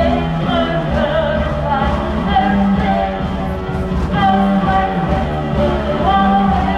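A live band playing a song, with a voice singing over the instruments.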